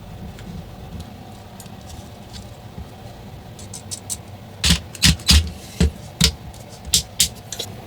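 A steady low background hum, then, from about halfway, a run of about eight sharp knocks and clicks as hard small parts are handled.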